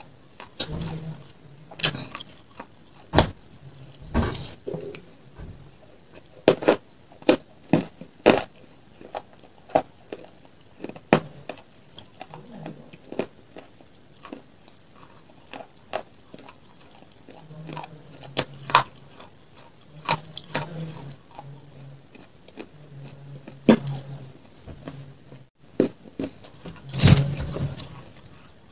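Metal spoon clinking and scraping against a glass tumbler while scooping ice cream, heard close up as irregular sharp clicks, with chewing in between. The loudest clinks come near the end.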